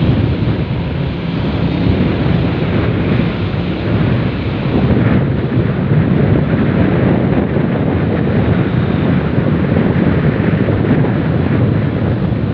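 Steady wind noise buffeting the microphone on a moving Honda XRM 125 motorcycle, with the bike's single-cylinder engine running underneath.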